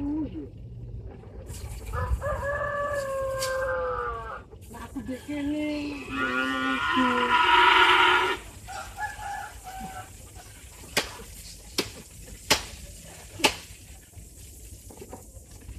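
A rooster crowing and cattle mooing, the long pitched calls overlapping, followed by four sharp knocks a little under a second apart near the end.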